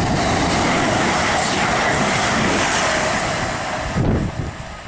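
CrossCountry Voyager diesel-electric multiple unit passing through the station at speed. Its wheels and engines make a loud, steady rush with a held tone, which falls away sharply about four seconds in as the train clears.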